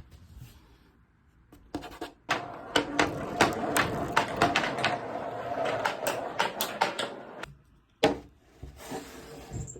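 Balls rolling and clattering through a handmade marble run: dense clicking and rattling starts about two seconds in, then one sharp knock comes about eight seconds in, followed by more rolling near the end.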